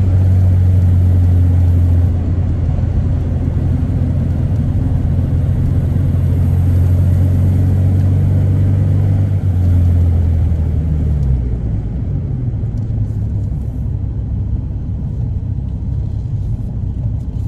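Engine and road noise inside the cabin of a 1996 Volkswagen Polo Harlekin driving at speed: a steady low engine hum over tyre and wind noise. The engine hum fades about two-thirds of the way through, leaving mostly road noise.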